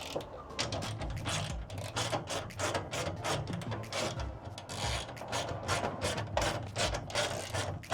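Hand ratchet clicking in repeated runs of quick strokes as the screws holding a van's bulkhead are undone.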